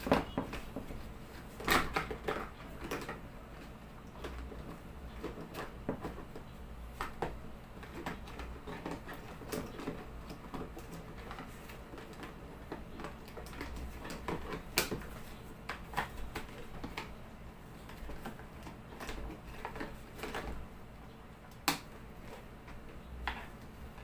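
Irregular light clicks and taps of electrical wires and plastic wire nut connectors being handled and arranged, with a few sharper knocks, over a faint low steady hum.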